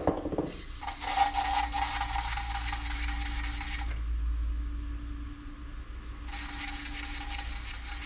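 Valve being lapped into its cylinder-head seat with carborundum grinding paste, the suction stick spun back and forth to give a gritty rasping scrape. Two spells of grinding with a short pause between them, about four seconds in.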